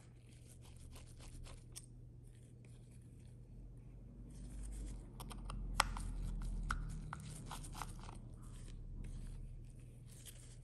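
Faint scattered clicks and scrapes of a precision screwdriver turning out the tiny screws of an iPhone 11 Pro's camera bracket, with gloved hands handling the phone; the clicks come thickest around the middle. A steady low hum runs underneath.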